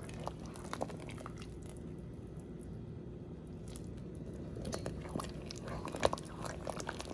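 Pot of thick soup simmering on the stove: scattered soft pops and clicks over a low steady hum, busier near the end.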